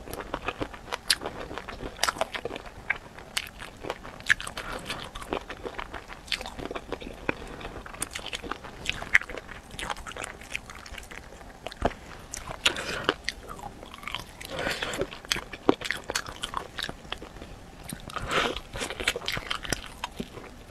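A person biting and chewing spicy chicken feet close to a clip-on microphone, with many sharp clicks and smacks of the mouth throughout.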